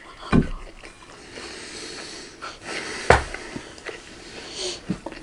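Breathy hissing of air close to the microphone, a long one for a couple of seconds and a shorter one near the end, with two dull bumps.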